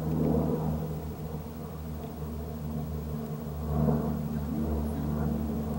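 A steady low mechanical hum of several level tones.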